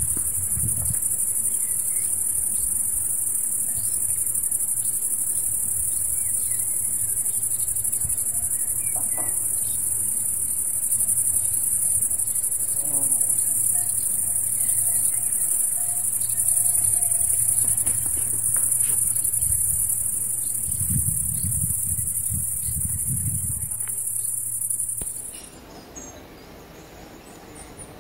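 Crickets chirring in a summer field: a dense, steady, high-pitched trill that cuts off suddenly about 25 seconds in.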